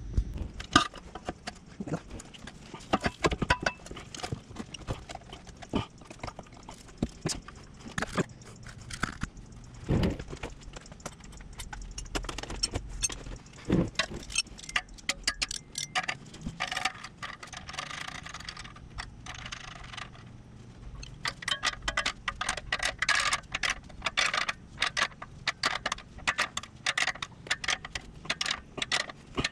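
A nylon zip tie being threaded around an exhaust pipe and ratcheted tight: rapid runs of small clicks as the tail is pulled through the lock, densest over the last several seconds, with scattered taps and a few knocks of hands and tie against the exhaust.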